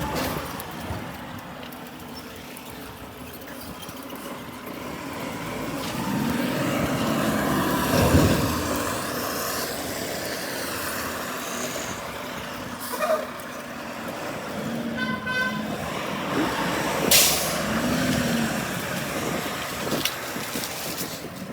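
Heavy trucks running and passing in street traffic, swelling to a peak about a third of the way through. A short air-brake hiss comes about three-quarters of the way through.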